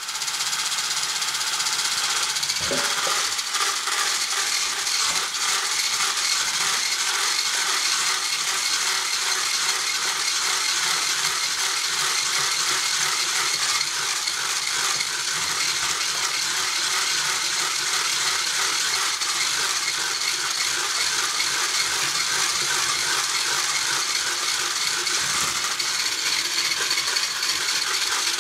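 Handheld electric whisk running steadily, its wire beater rattling against a stainless steel saucepan as it whips eggs, mashed banana, butter and sugar into cake batter.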